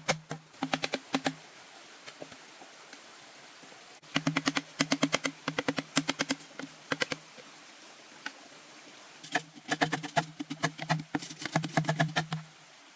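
Rapid knocking or clicking, about eight to ten knocks a second, in three bursts of two to three seconds, each with a low hum beneath it.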